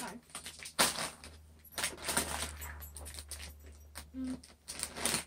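Plastic snack bags crinkling and rustling in irregular bursts as they are handled.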